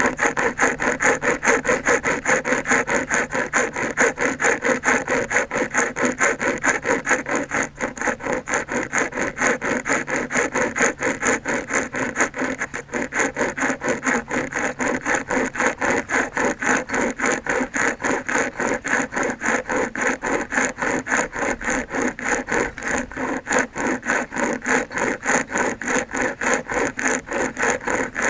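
SOG pocket chainsaw, a hand-pulled length of chainsaw chain, sawing through solid wood in quick, steady back-and-forth strokes.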